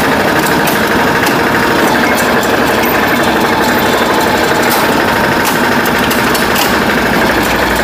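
Yanmar walk-behind tiller's L60 single-cylinder air-cooled diesel engine running steadily.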